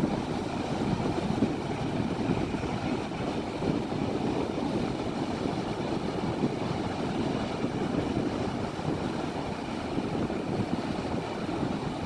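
Wind buffeting the phone's microphone: a steady rumbling noise that keeps rising and falling, with no separate events.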